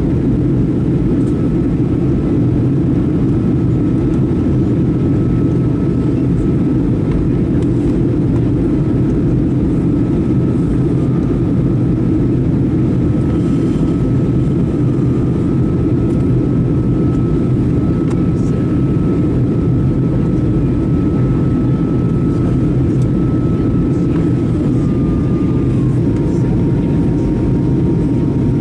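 Boeing 737-800 cabin noise heard from a window seat: the steady roar of the CFM56 turbofans and airflow during the descent on approach. A faint high whine runs over it and steps lower in pitch a few times, dropping most near the end.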